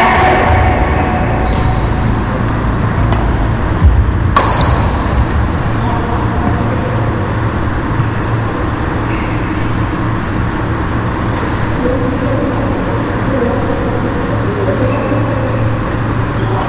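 Badminton play on a wooden indoor court: a few sharp racket hits on the shuttlecock and short high squeaks, likely shoes on the floor, over a steady low rumble of the hall, with a thump about four seconds in.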